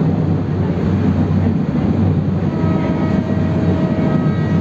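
Passenger train running at speed, heard from aboard: a steady, dense low rumble of wheels on the track and rushing air, with a faint steady whine that comes in about halfway through.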